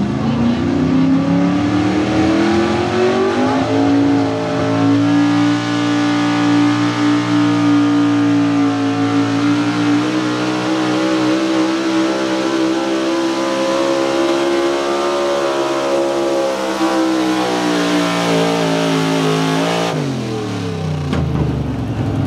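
Small-block V8 of a 440-cubic-inch-class 4x4 pickup pulling a sled at full throttle. The revs climb over the first few seconds, then hold high and creep slowly upward through the pull. About twenty seconds in the pitch drops sharply as the throttle is lifted at the end of the run.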